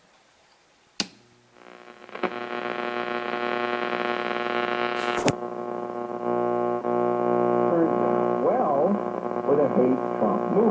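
1968–69 Buick Delco Sonomatic AM push-button car radio switching on with a click about a second in, then a loud steady hum that rises and holds from its speaker. A second click about five seconds in, and near the end an AM talk station's voices come through, wavering, over the hum.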